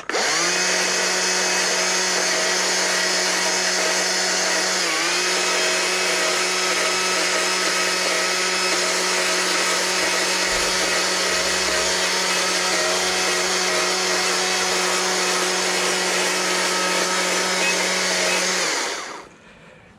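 Chainsaw running at a steady high speed while carving fur texture into wood, a constant high-pitched whine with a brief dip about five seconds in. It dies away near the end.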